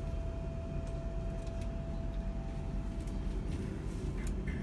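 Steady low rumble inside an NMBS passenger train as it pulls away from a station, with a thin steady whine that fades out about three seconds in and a few light clicks near the end.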